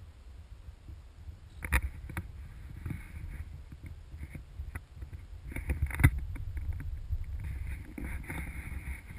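Handling noise from a GoPro carried low on a monopod: irregular knocks and rubbing over a steady low wind rumble on the microphone, with two sharper knocks about two seconds and six seconds in.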